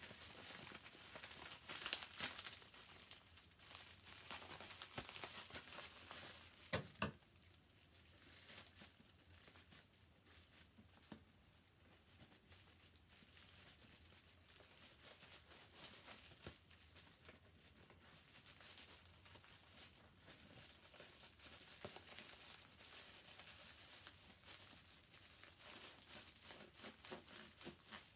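Bubble wrap being handled and pulled off a plush toy: uneven plastic crinkling and rustling, loudest about two seconds in and again near seven seconds, quieter through the middle and picking up again near the end.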